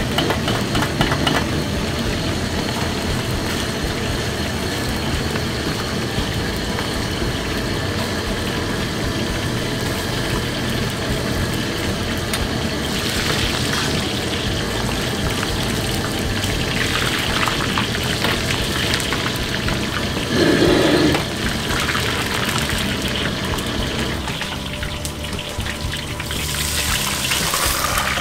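Chicken pieces deep-frying in a wok of hot oil over a gas wok burner: steady bubbling and sizzling over the burner's rumble, with a ladle stirring. A brief louder knock about two-thirds of the way in, and a louder hiss near the end as the wok is tipped out into a wire strainer.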